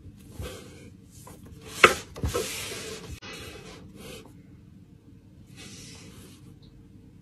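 Paper pages of a bound journal rustling and rubbing as they are turned and pressed flat by hand, with one sharp tap about two seconds in. A shorter scratch of a pen on paper follows near six seconds.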